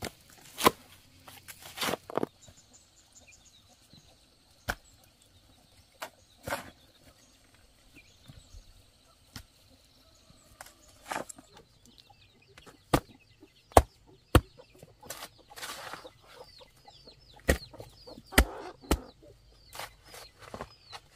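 A hoe striking and scraping into wet mud and stony soil, a dozen or so sharp strikes at irregular intervals, with chickens clucking.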